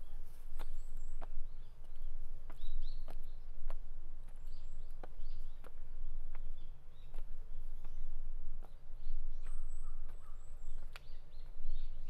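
Footsteps on a hard path at about one step a second, with small birds chirping high and briefly among them over a steady low rumble.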